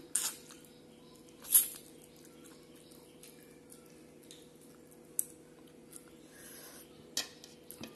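Wet chewing and lip-smacking of a person eating mutton curry by hand, in a few short separate smacks, the loudest about a second and a half in, over a faint steady hum.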